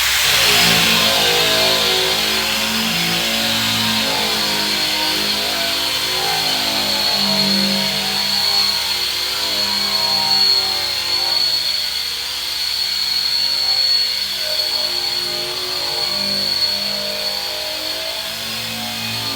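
Background music with plucked, guitar-like notes over a Bauer surface conditioning tool running steadily with a high whine and a hiss of abrasion as it works metal.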